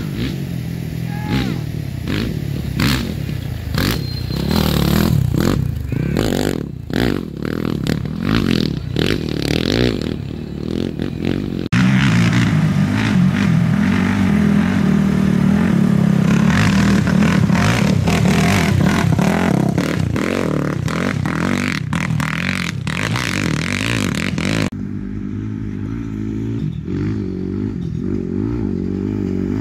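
Off-road race vehicle engines revving hard and running at speed on a dirt course, with clattering and scraping mixed in. The sound changes abruptly twice, about twelve and twenty-five seconds in.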